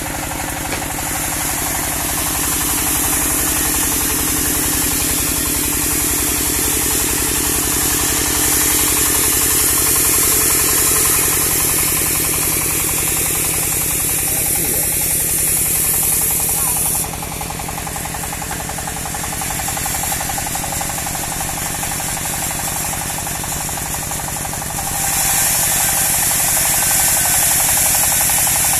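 Engine-driven portable bandsaw sawmill running steadily, with a loud high hiss over the engine. The hiss and the loudness drop about 17 seconds in and come back about 25 seconds in.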